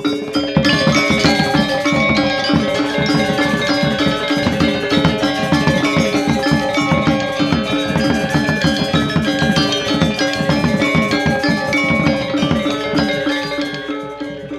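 Balinese gamelan playing a fast, dense passage: bronze metallophones struck in quick interlocking strokes over ringing gong tones, with drums. It comes in loud about half a second in and eases off near the end.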